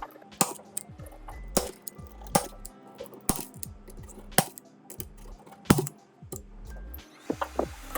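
Sharp, irregular clicks and taps of small tools and parts being handled during iPhone repair work, roughly one a second with a quicker run of clicks near the end, over faint background music.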